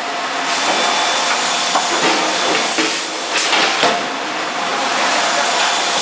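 Forge shop noise around a hydraulic die forging hammer: a steady loud hiss, with a few light knocks a little past the middle.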